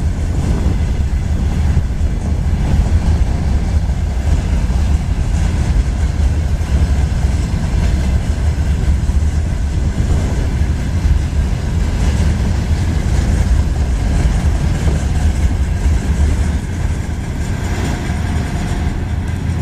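Freight train rolling through a station: a steady, loud rumble of wheels on the rails, with a little clickety-clack.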